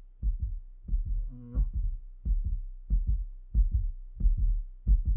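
Heartbeat sound effect: a steady double thump, about one and a half beats a second, over a low steady drone, used for suspense, with a brief low tone about a second and a half in.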